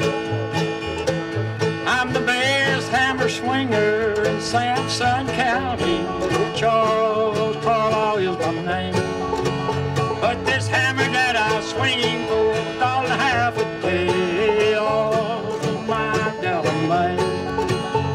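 Bluegrass string band playing live: banjo, mandolin, acoustic guitar and upright bass.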